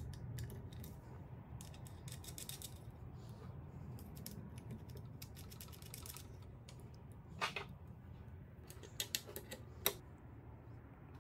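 Small metallic clicks and taps of nuts, washers and bolts being handled and threaded by hand as a chainsaw bar is fastened to a metal adapter plate, scattered and irregular, with a few sharper clicks in the last few seconds, over a low steady hum.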